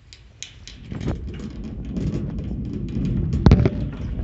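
Wire shopping cart being pushed, its wheels rumbling over the floor and the basket rattling, starting about a second in and growing louder. There is one sharp clank about three and a half seconds in.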